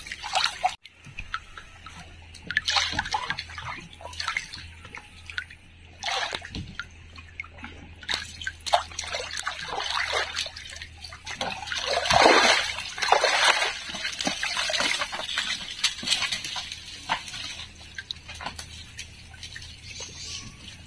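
Water sloshing, splashing and dripping irregularly as a person wades through a shallow stream and works a scoop net in it. The splashing is loudest about twelve seconds in.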